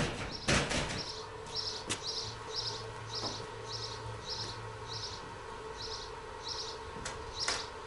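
A small bird chirping over and over, short high chirps about twice a second, with a few sharp knocks near the start and one near the end.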